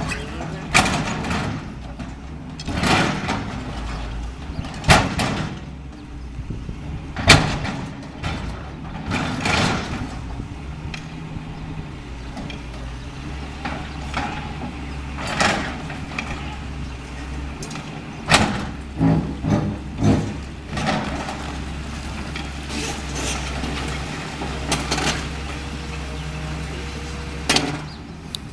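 Caterpillar 325L hydraulic excavator's diesel engine running steadily while demolishing a building, with repeated crashes and scrapes of breaking concrete and debris. The loudest crash comes about seven seconds in, and a quick run of several crashes comes about two-thirds of the way through.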